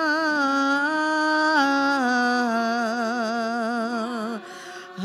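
A woman singing a slow worship melody through the sound system, holding each note with a wide vibrato as the line steps down in pitch. The phrase ends about four and a half seconds in, and a new held note starts just before the end.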